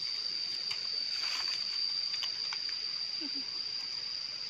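A steady high-pitched insect drone, with a few faint clicks and leaf rustles as pigeon pea pods are picked off the bush.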